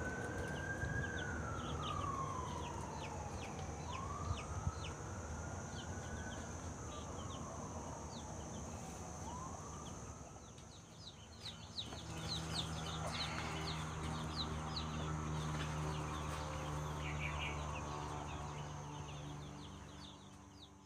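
Young chicks peeping in short high cheeps, while a distant siren wails slowly up and down over the first half. About halfway through a steady low hum sets in.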